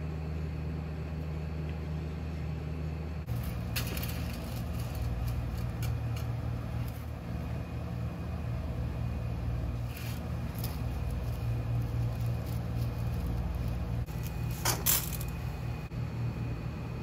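Kitchen background: a steady low mechanical hum, with scattered light clinks and clatters of metal cookware, the sharpest about 15 seconds in.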